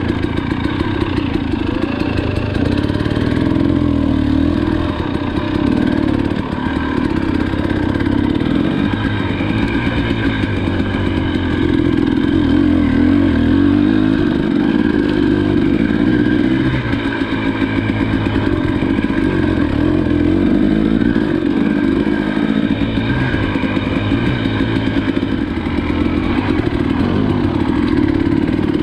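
Motorcycle engine running steadily while riding, its revs rising and falling slightly.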